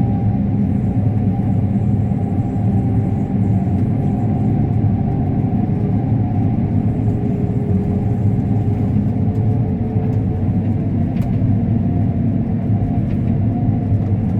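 Combine harvester running steadily while cutting corn, a continuous low drone of engine and machinery.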